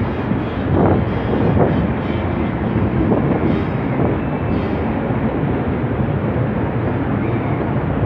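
Steady low rumble of a ship's engines as the vessel moves slowly past the quay.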